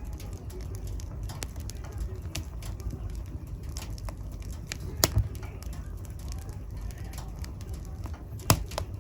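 Wood fire burning in a fireplace: a steady low rumble of flames with scattered crackles, and two sharp pops, about five seconds in and near the end.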